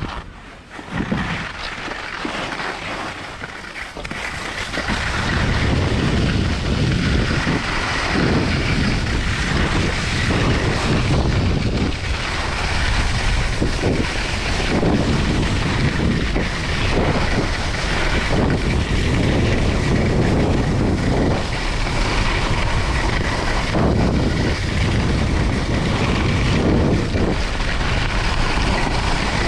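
Skis running fast down a hard-packed ski slope: wind rushing over the action camera's microphone, with the skis scraping on the snow. It is quieter at first and grows loud about five seconds in as speed builds, surging every second or two with the turns.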